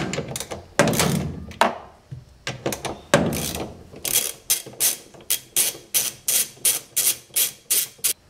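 Socket ratchet undoing a washing-machine motor's stator bolts. First a few knocks and scrapes as the socket is worked on the bolt, then from about four seconds in a steady run of ratchet clicks, about three a second.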